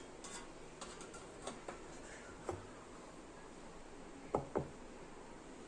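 Aluminium idli plates clinking and knocking against their central stand and the pot as they are stacked: a few scattered light clicks, then two sharper knocks close together about four seconds in.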